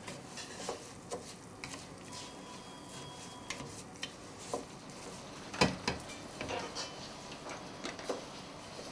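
A spoon stirring in a copper saucepan on the stove, with scattered light clinks and scrapes against the pan and one louder knock a little past halfway.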